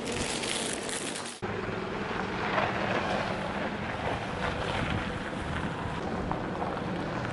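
Indoor shop background noise, a steady hiss, that cuts off abruptly about a second and a half in. It gives way to a steady rushing noise of wind blowing on the microphone outdoors.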